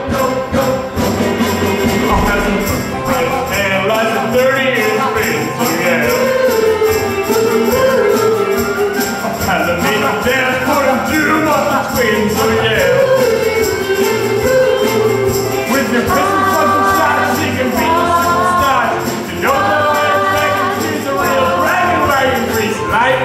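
Rock and roll song number: voices singing over a full band with a steady beat.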